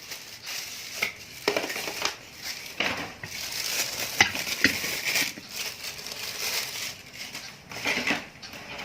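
Irregular crinkling and crunching from a dark chocolate bar being handled in its wrapper, with scattered sharp clicks.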